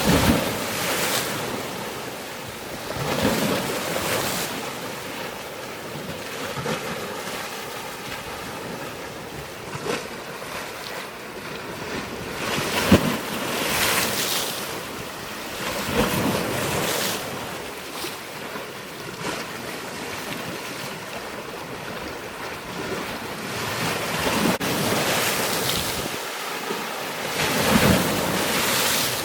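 Waves washing in, the rush swelling and fading every few seconds, with wind buffeting the microphone.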